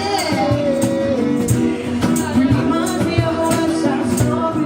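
A live band playing a Latin-pop song, with a singer over a steady beat.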